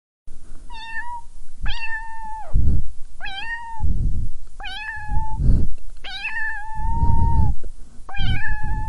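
Cat meowing: six long, drawn-out meows during a standoff between two cats, each rising at the start and then held at a steady pitch. Loud low rumbling noise fills the gaps between the calls.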